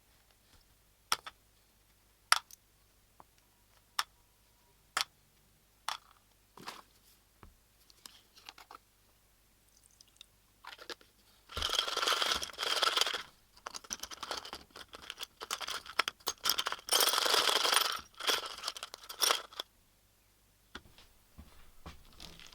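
A string of sharp separate clicks and taps, then from about halfway through several seconds of plastic bag crinkling as parts are sealed in a bag with a little oil.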